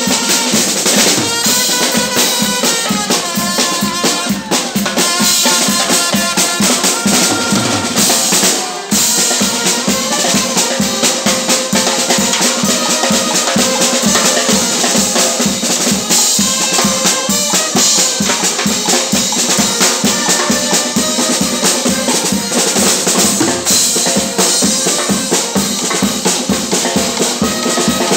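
Music with a fast, steady drumbeat and a melody over it, briefly dropping out just before nine seconds in.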